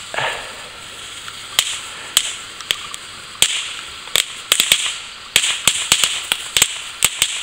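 Consumer firework going off: a string of sharp cracks and pops, a few spaced out at first, then coming thick and fast from about halfway in, over a steady hiss.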